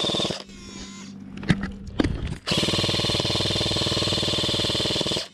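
Airsoft electric gun firing on full auto: a burst that stops about half a second in, two sharp clicks, then a longer burst of about two and a half seconds.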